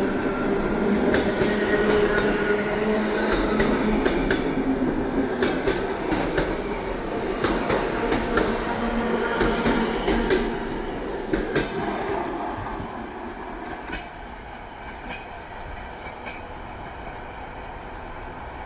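ER2K electric multiple unit moving past the platform. Its motors hum steadily and its wheels click over the rail joints. The sound fades over the second half as the train draws away.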